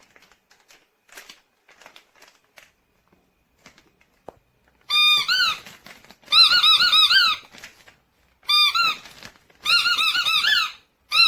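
Squeaky dog chew toy being squeezed. Faint clicking and handling comes first, then from about five seconds in five bursts of high, wavering squeaking.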